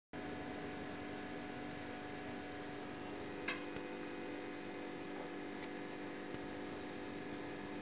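Steady electrical hum with a brief faint click about three and a half seconds in.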